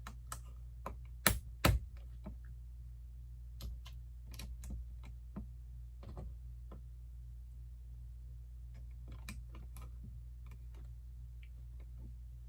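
LEGO plastic pieces clicking and snapping together as they are handled and pressed on, with two sharp snaps a little over a second in, then scattered lighter clicks.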